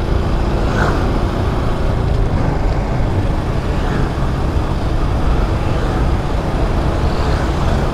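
Motorcycle running steadily while ridden through city traffic, with wind rumbling heavily on the microphone.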